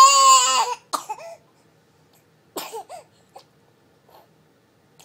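A baby's high-pitched squeal ends just under a second in, followed by a few short coughs or gags as she struggles with a mouthful of chunky chicken.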